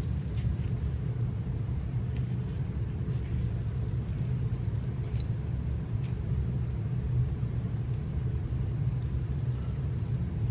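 Steady low rumble with a faint hum running underneath, and a few faint, soft clicks of a knife cutting into an avocado.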